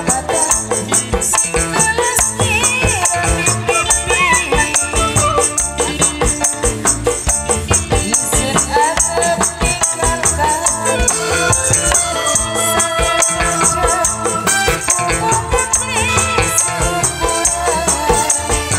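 Live burok dangdut band music: a steady rattling shaker beat over drums, with a gliding melody line on top.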